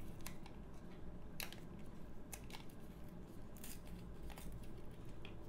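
Irregular small clicks and scrapes as a coiled smartwatch charging cable is worked loose from its black plastic holder by hand.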